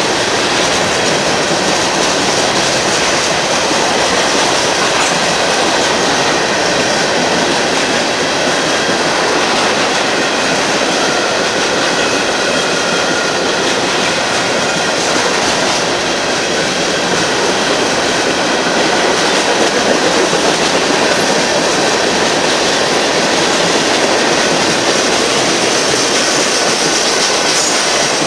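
Union Pacific freight train cars rolling past, a steady rumble and clatter of wheels on the rails, with faint high wheel squeal.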